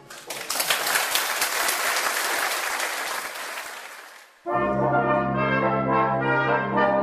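Audience applause after a brass band piece, dying away over about four seconds. Then a brass band abruptly starts the next piece with held notes over a deep bass line.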